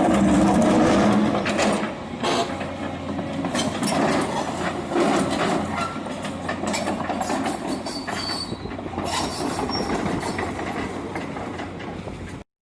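Volvo excavator at work: its engine running under a clatter of metal clanks, squeals and scraping, loudest in the first two seconds. It cuts off abruptly just before the end.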